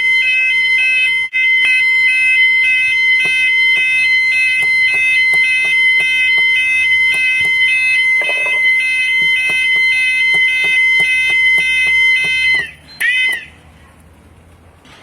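Fire alarm from a Protec Fire 5 kit sounding: a loud, steady high-pitched tone with another tone pulsing rapidly on and off over it. About twelve and a half seconds in it cuts out with a falling pitch, gives one short falling chirp, then stops.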